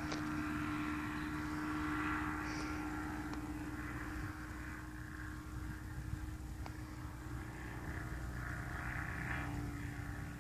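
Hurricane ultralight airplane's engine and propeller droning steadily in flight, one even pitch held throughout.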